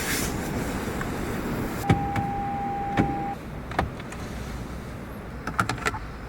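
Operating sounds of a Lexus NX 450h+ plug-in hybrid SUV. Several sharp mechanical clicks, the first joined by a steady electronic beep about a second and a half long, and a quick flurry of clicks near the end, all over a low steady hum.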